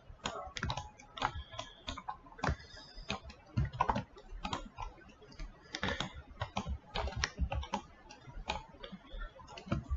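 Computer keyboard and mouse being worked: irregular clicks and key taps, several a second at an uneven pace.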